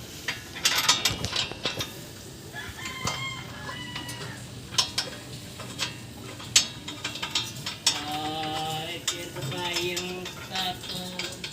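A rooster crowing, most plainly about eight seconds in, over scattered sharp clicks and knocks.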